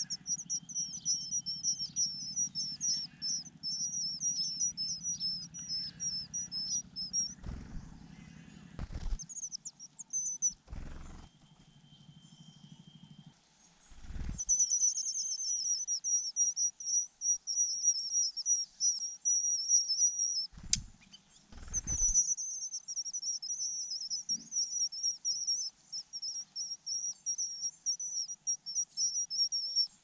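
Verditer flycatcher nestlings begging: rapid, high-pitched chirps repeated in long runs, with a pause of several seconds in the middle. A few short thumps come between the runs.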